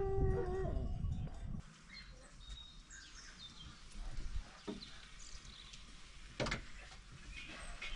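A farm animal calls once over wind rumble. Then, in a quieter spot, birds chirp, and the charcoal oven's iron door gives a metal click and a sharp knock as it is unlatched and swung open.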